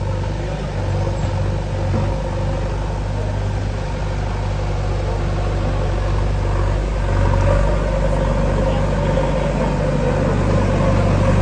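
Diesel engine of a JCB backhoe loader idling steadily, growing slowly louder.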